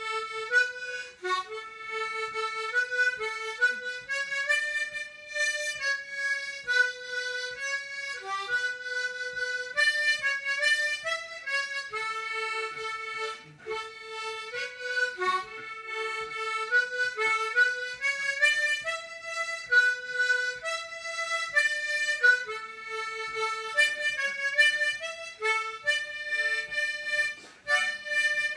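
German Kreuzwender tremolo harmonica in D playing a slow melody, note by note, with brief pauses between phrases.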